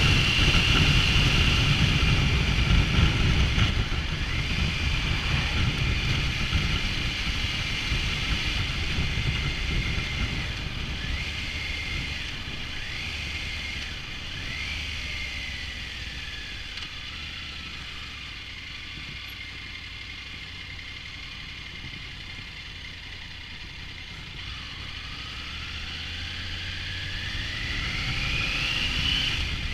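Triumph Tiger 900 three-cylinder motorcycle on the move, with wind rumble on the microphone. It eases off and gets quieter through the middle, with a few short falling engine notes, then the engine note climbs steadily as it accelerates near the end.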